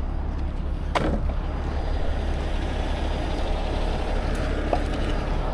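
Heavy rotator tow truck's diesel engine running steadily to power the boom during the lift, with a short falling squeak about a second in.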